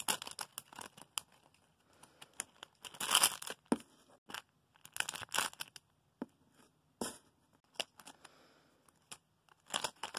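Plastic packaging crinkling and rustling in irregular bursts as packaged squishy toys are handled, with small clicks and taps between.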